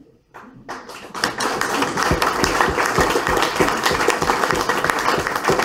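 Audience applauding: many hands clapping together, swelling up over the first second and then holding steady.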